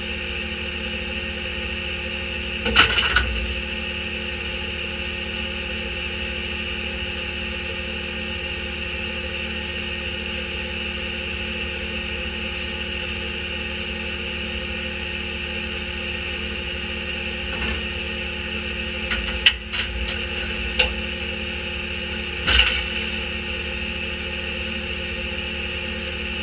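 Autocar Leach rear-loader garbage truck running steadily, with clattering knocks as bulky items (a cardboard box and wooden strips) are tossed into its steel hopper: one sharp clatter about three seconds in, then several knocks and a clatter near the end.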